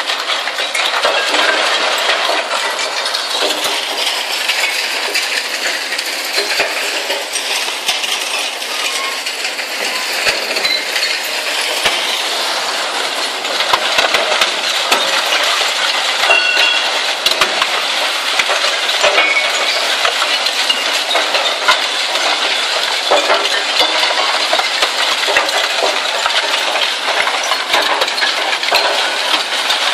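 Zato Blue Devil twin-shaft shear shredder tearing up scrap steel: a continuous loud clanking and grinding of metal being sheared, full of sharp metallic clinks, with harder clanks from about halfway.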